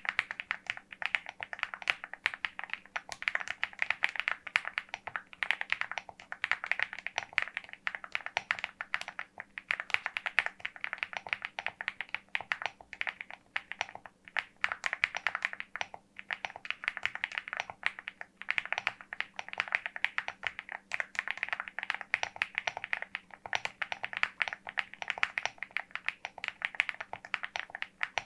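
Fast, continuous typing on a LEOBOG Hi75 aluminium-case mechanical keyboard fitted with linear switches: a dense stream of keystroke clacks, broken by a few short pauses.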